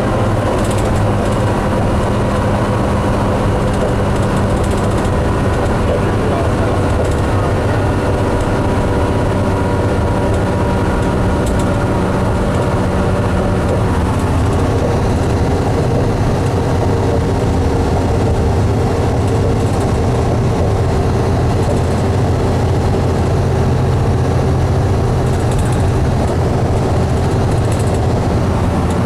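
Cabin sound of a 2005 New Flyer D60LF articulated diesel bus under way: steady engine drone and road noise, the engine note shifting to a new pitch about halfway through.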